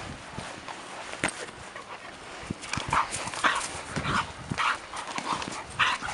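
A Podenco Canario mouthing and biting a hard plastic ball as she noses it across the grass: scattered knocks at first, then from about halfway a string of short scraping rasps about every half second.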